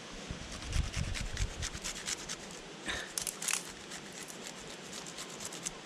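Garlic and onion being ground by hand: irregular rubbing and scraping strokes, with a few low knocks in the first couple of seconds.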